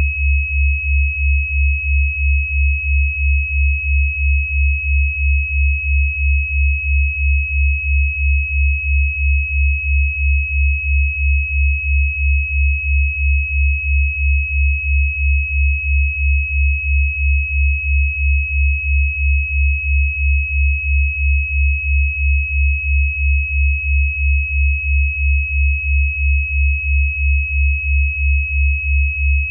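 Synthesized healing-frequency tone: a steady high pure tone held over a deep low hum that pulses evenly about two and a half times a second, unchanging throughout.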